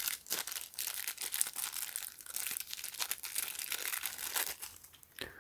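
Packaging of a small LiPo battery voltage alarm crinkling and tearing as it is opened by hand. It is a dense run of crackles that dies away near the end.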